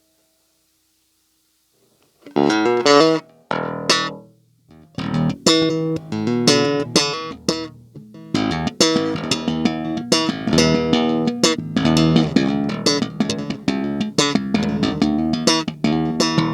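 Bass guitar strung with boiled strings being played: after about two seconds of silence, a few plucked notes, then a continuous riff of quickly plucked notes. Boiling the old strings is meant to bring back their dulled tone.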